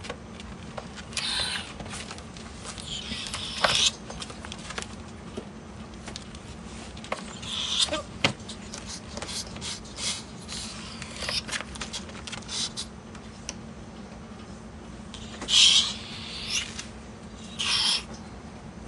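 Two ferrets play-fighting: a handful of short hisses, the loudest about three-quarters of the way through, with scrabbling and clicking of claws on the pen floor between them.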